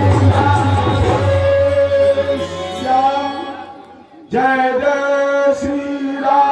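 Devotional bhajan music with long held notes. It dies away about four seconds in, and a new passage starts straight after.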